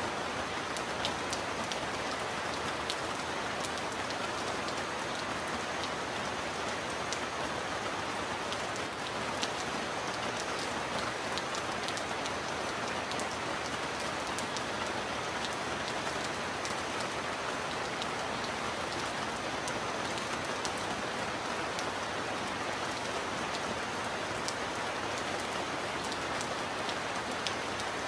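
Heavy rain falling steadily: a dense, even hiss sprinkled with sharp ticks of individual drops.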